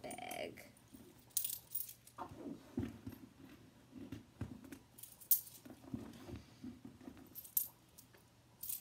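Loose coins clinking as they are handled and put into a small purse: several separate clinks spread through, over soft rustling of hands and fabric.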